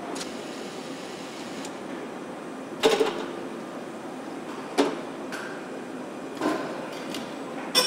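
Steady industrial air noise of a paint shop, broken by four sharp metallic clanks a second or two apart, the last ringing briefly.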